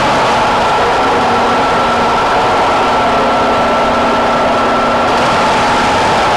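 Steady, loud drone of ferry machinery, with a constant high whine over a low rumble, the kind of noise heard on a car ferry's vehicle deck during boarding.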